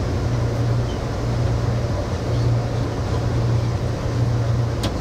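Amtrak Southwest Chief passenger train in motion: a steady low hum and rumble of the moving train, with one sharp click near the end.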